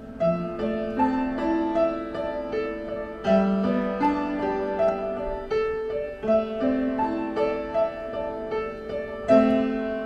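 Upright piano being played: a slow melody over sustained lower notes, with a loud chord struck near the end.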